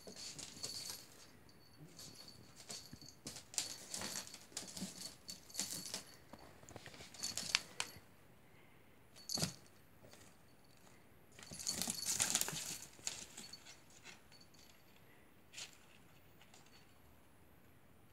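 Thin plastic strapping strips from flyer bundles rustling and clattering in irregular bursts as a kitten bats, bites and drags them across the floor. A longer, louder burst comes about two-thirds of the way through.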